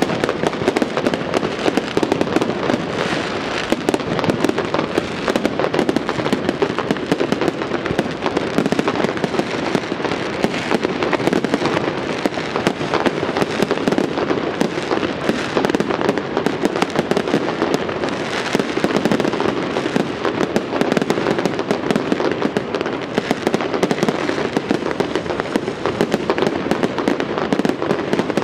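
Fireworks display in a continuous barrage: many rapid bangs and crackles packed closely together, with no break.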